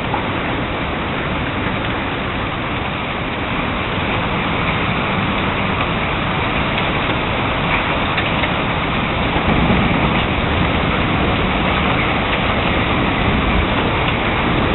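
Heavy thunderstorm rain pouring down steadily, a dense even hiss with a low rumble that swells slightly about ten seconds in.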